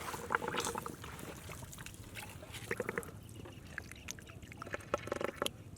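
Wet mud and water squelching and trickling as hands work in a muddy eel hole, with scattered small wet clicks and two short spells of rapid crackly squelching, about three seconds in and near the end.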